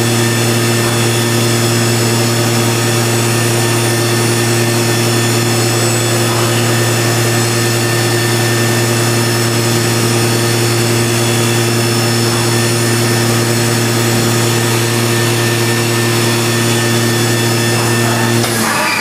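Mazak VTC 20 BM Plus vertical machining centre running, a steady hum with a high whine over it, which cuts off suddenly near the end.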